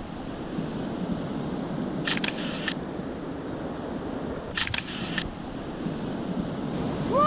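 Steady wash of sea surf, broken twice by a short camera-shutter-like burst, about two seconds in and again about four and a half seconds in.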